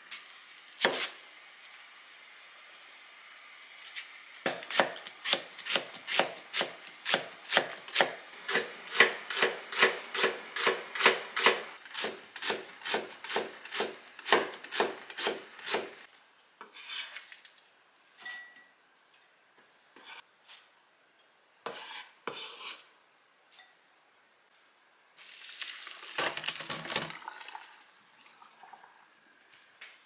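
Kitchen knife slicing a red onion thinly on a wooden cutting board, a steady run of crisp cuts about three a second for roughly eleven seconds. Then a few scattered knocks of kitchen handling, and a louder rustle near the end.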